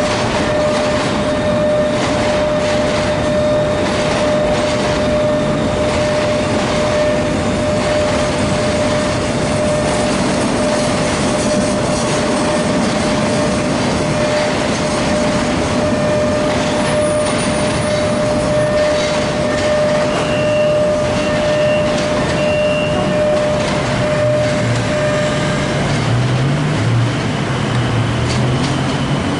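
Freight train of tank wagons rolling past: a steady rumble of wheels on rail with scattered clicks and a steady high tone, which stops about 25 seconds in. A low wavering hum comes in near the end as the last vehicle passes.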